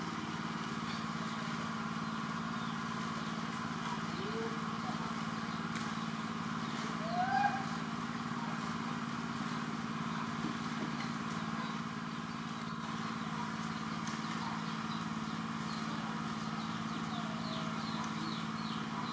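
A steady mechanical hum, like a motor running nearby. About four and seven seconds in come a few short arching squeaks, and near the end a run of quick high chirps.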